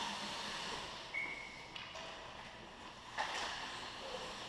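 Ice hockey play around the goal: skates scraping on the ice and sticks clattering under a steady hiss, with a sharp knock about three seconds in and a brief high tone just after one second.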